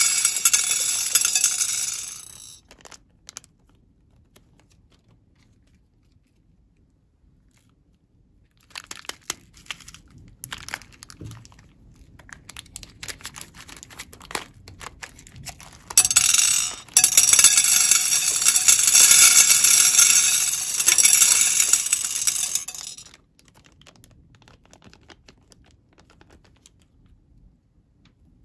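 Plastic bags of beads crinkling loudly as they are handled and squeezed, at the start and again for several seconds past the middle, with scattered clicks and snips of scissors cutting a bag open in between.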